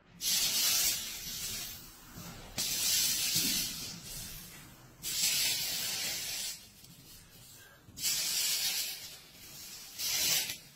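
Molten solder in a handheld solder pot sizzling as twisted copper wire splices are dipped into it, one short hissing burst per dip, five times.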